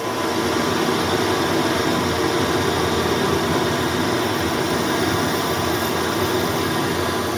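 Metal lathe running with its power feed engaged, the tool cutting steadily into the workpiece to part off a spacer.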